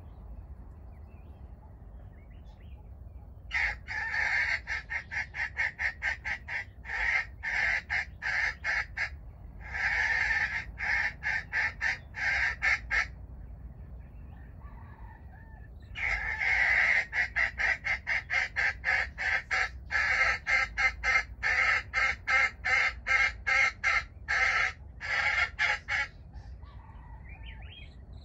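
Junglefowl (wild chicken) clucking loudly in two long bouts of rapid repeated clucks, each about ten seconds, with a short pause between.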